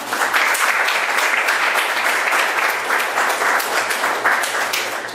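Audience applauding: many people clapping together, steady and dense throughout, starting to die away at the very end.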